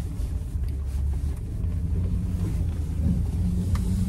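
Car engine and road rumble heard inside the moving vehicle's cabin, a steady low drone.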